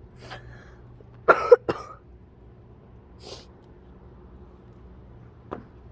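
A person who is sick with a cold coughs twice in quick succession, about a second in.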